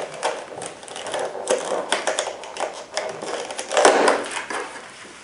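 Rigid clear plastic clamshell packaging being prised open and handled: an irregular run of crackles, clicks and snaps of the plastic, loudest about four seconds in.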